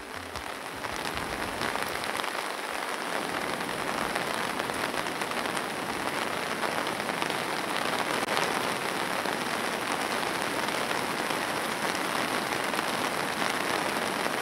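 Steady rain, a dense patter of fine drops falling on the ground and grass. It swells up over the first second or so.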